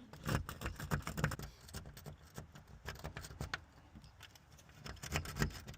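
Light metallic clicks and rattles of lock-picking tools being worked in a door lock, coming in irregular clusters, busiest early on and again near the end.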